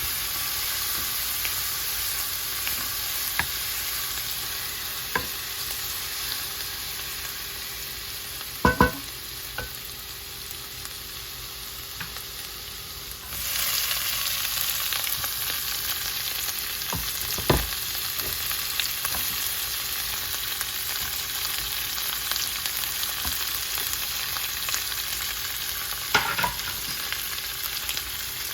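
Food sizzling in a pan with a steady hiss that gets louder about halfway through, and a few sharp knocks of a utensil or pan now and then.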